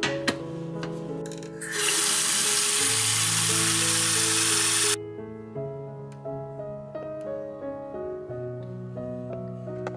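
Tap water running from a two-handle bathroom faucet into a sink basin, a steady splashing stream that starts about two seconds in and cuts off suddenly about three seconds later. Gentle background music plays throughout.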